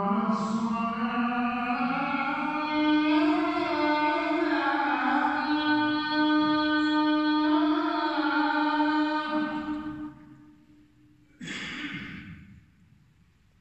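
A single voice chanting Islamic recitation in long, ornamented held phrases: one sustained phrase of about ten seconds, then a shorter phrase after a breath.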